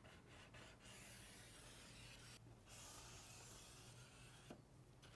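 Faint scratching of a line being drawn along a straight-edge level onto the metal roofing trim, in two long strokes of about a second and a half each.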